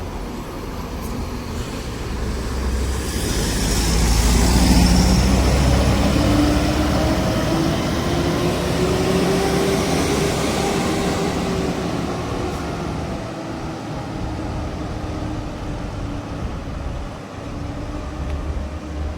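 Coach's diesel engine pulling away. Its pitch climbs for several seconds as it accelerates, loudest a few seconds in, then drops and fades as the bus drives off.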